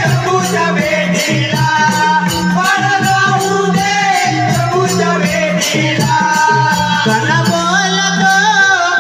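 Marathi Konkan jakhadi folk song (a gan): a melody sung over rattling percussion that keeps a steady beat.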